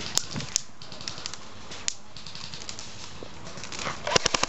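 Airsoft guns firing: scattered single snapping shots, then a quick burst of about six shots near the end.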